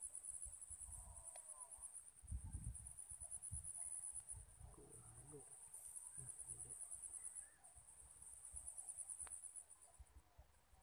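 Insects trilling steadily, a high, finely pulsing buzz, over low rumbling on the microphone and a few faint clicks.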